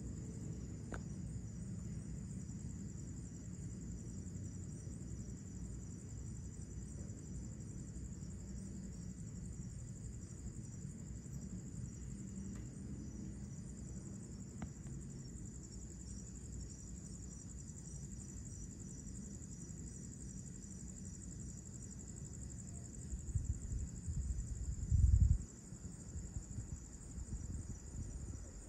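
Steady chorus of night insects, a continuous high trill, over a low rumbling background. About 23 seconds in, a louder low rumble swells for a couple of seconds and cuts off suddenly.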